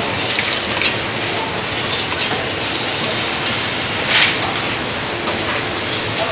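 Automatic glass-vial inspection machine running: a steady dense clatter of conveyor and feed mechanism with glass vials clinking, broken by sharp clicks now and then, the loudest about four seconds in.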